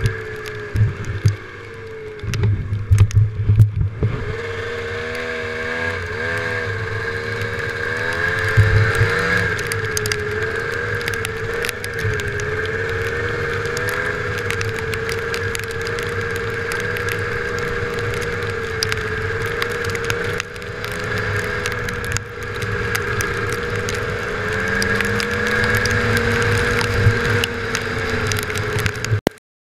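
Snowmobile engine running at trail speed, its pitch wavering up and down as the throttle changes. Thumps and rattles from bumps stand out about two to four seconds in and again near nine seconds, and the sound cuts off suddenly near the end.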